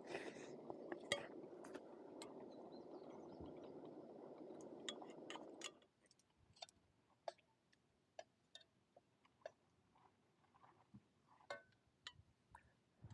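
Quiet small clicks and clinks of food and tableware being handled. A steady low hiss underneath stops abruptly about six seconds in, leaving only the scattered clicks.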